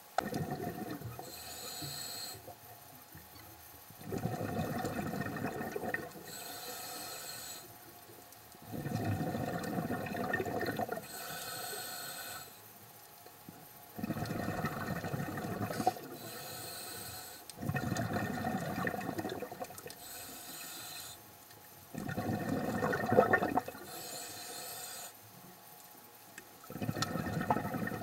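Scuba diver breathing through a demand regulator underwater. Each breath is a hiss as air is drawn in, then a louder gurgling rush of exhaled bubbles. About six or seven breaths come at a steady pace of one every four to five seconds.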